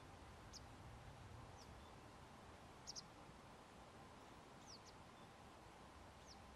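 Faint background with short, high, downward-sweeping bird chirps every second or so; a quick double chirp about three seconds in is the loudest.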